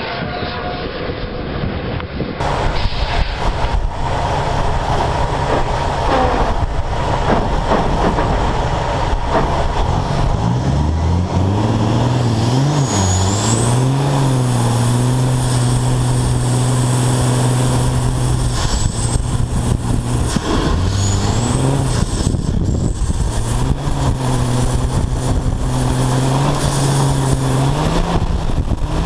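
Big-rig diesel engine revved hard and held at high revs during a drift, its pitch climbing, holding steady, briefly dropping and climbing again, heard close from a camera on the truck's side.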